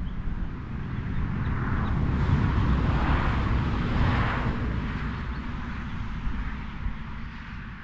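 A vehicle passing by: a noisy rush that swells over about two seconds, peaks near the middle, then fades away, over a steady low rumble.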